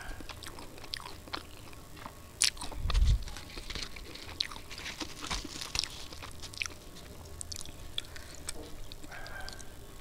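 Close-miked chewing of a mouthful of puri and curry, with many short wet mouth clicks and smacks. A louder dull thump comes about three seconds in, and puri is torn by hand around the middle.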